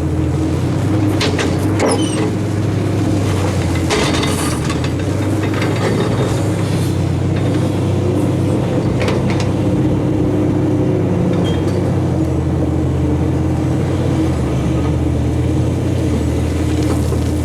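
Large diesel engine of heavy earthmoving machinery running steadily under load, with several sharp metallic clanks and rattles scattered through, the first few about a second or two in.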